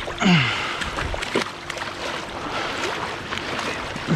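Water splashing and sloshing as a person wades and a dog swims, with a goose being pulled from the water. A short sound falling in pitch comes right at the start and again near the end.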